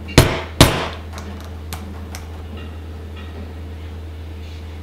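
A mallet strikes a leather hole punch twice in quick succession, driving a 3 mm hole through a leather strap resting on a stone slab. A few faint clicks follow as the punch is handled.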